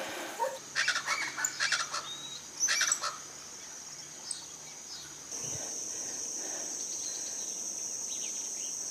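Chickens clucking and calling several times in the first three seconds, then a steady high-pitched insect chirring that starts abruptly about five seconds in.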